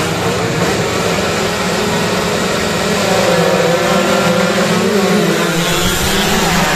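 A pack of 116 cc two-stroke underbone racing motorcycles running together, several engines revving at once in overlapping rising and falling tones.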